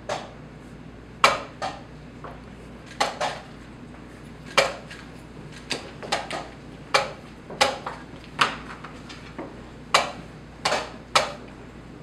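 Wooden chess pieces set down hard on a wooden board and the chess clock pressed in rapid blitz play: about fifteen sharp clacks, many of them in quick pairs.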